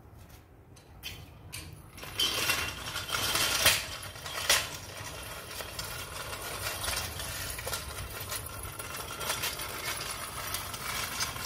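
Engine oil pouring from a plastic jug into a plastic funnel, a steady splashing pour that gets louder about two seconds in, with a few knocks and clinks in the first seconds.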